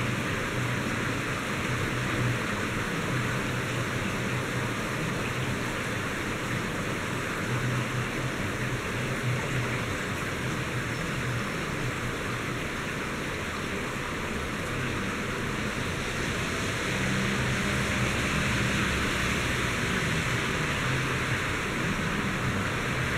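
Heavy rain shower falling steadily, a dense even hiss, with a low hum coming and going underneath. It grows slightly louder about two-thirds of the way through.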